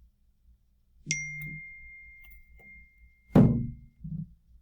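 A single bright ding about a second in that rings on as one steady high tone for nearly three seconds, then a loud thump and a softer knock near the end.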